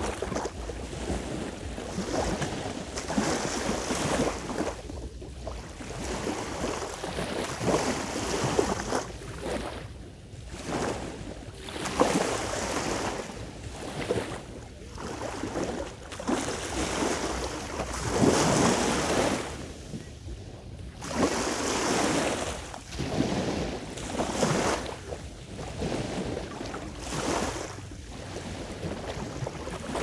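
Sea waves washing in, swelling and falling back in surges every few seconds, with wind noise on the microphone.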